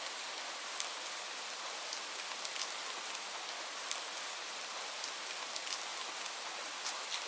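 Steady rain falling on leaves: a constant hiss with many sharp individual drop ticks scattered through it.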